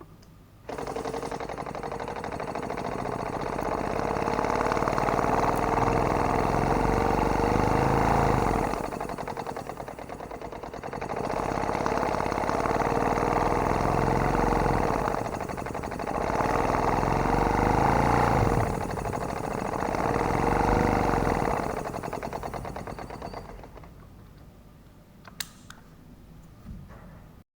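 A small air pump or compressor running steadily, supplying air to a pneumatic artificial muscle. It starts suddenly, swells and sags in loudness several times, and fades out near the end.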